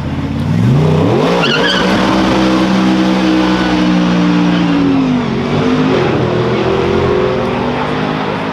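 Hill-climb race car launching from the start line, its engine revs rising sharply about half a second in and staying high as it accelerates away. The pitch drops about five seconds in at a gearshift, then climbs again.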